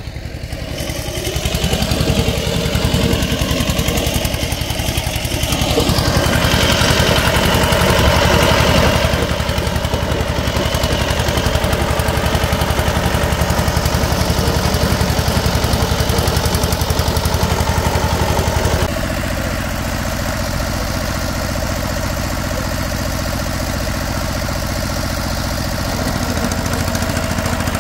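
Walk-behind power tiller's small engine running steadily while tilling a wet paddy field, its firing beat dense and even; it drops to a lower, quieter running about two-thirds of the way in.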